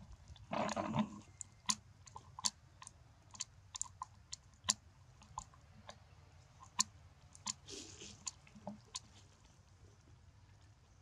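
Young macaque cracking and chewing peanuts: a string of sharp, irregular crunches and clicks, with a louder crunching rustle just under a second in.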